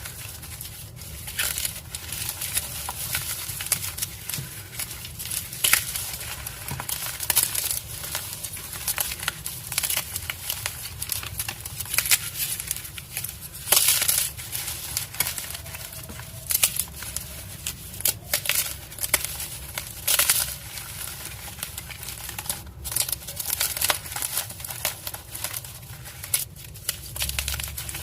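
Dyed gym chalk blocks being crushed: a dense, irregular run of dry crunches and crackles, with a few sharper, louder snaps.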